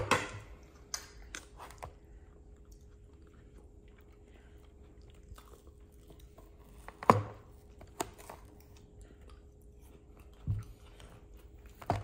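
Cake being eaten with plastic spoons: a few sharp clicks and scrapes of the spoons against the foil-covered cake board, spaced seconds apart, with a duller knock near the end.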